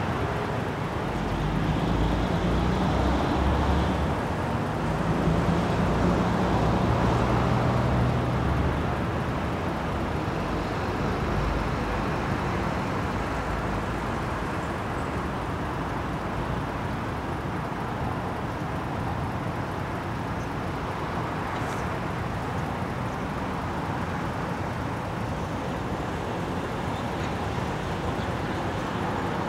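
Road traffic: a motor vehicle's engine passes by over the first several seconds, then a steady hum of distant traffic.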